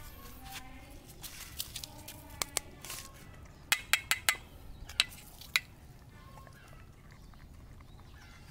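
Metal spoon clinking against a stainless steel dog bowl: a few light taps, then a quick run of sharp, ringing clinks about four seconds in and two more around five seconds.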